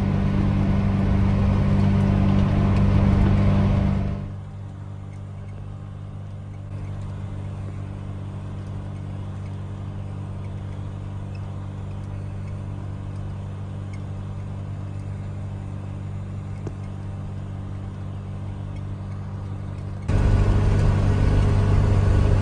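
Massey Ferguson 5S.145 tractor's diesel engine running steadily under load while driving the PTO mower. About four seconds in the sound drops suddenly to a quieter, duller hum, then jumps back to full level near the end.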